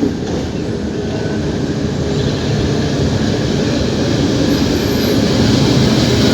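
Abu Qir commuter train running on its rails: a steady rumble and clatter that grows gradually louder.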